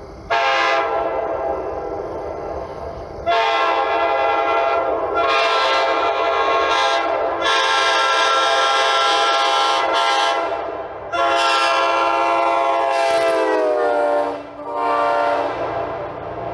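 Nathan K5LA five-chime locomotive air horn sounding its chord in several long blasts, the longest about seven seconds. The pitch sags downward as the third blast trails off.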